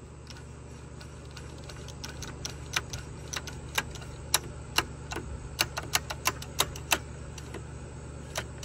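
Irregular sharp clicks and taps from a screwdriver worked in a hole in the side of a Homelite Super XL chainsaw's housing. They begin about two seconds in and come a few a second at most, over a steady low hum.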